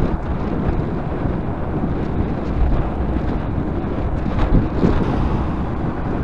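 Wind buffeting the microphone of a bicycle-mounted camera while riding along a road, a steady low rumble with no clear tones.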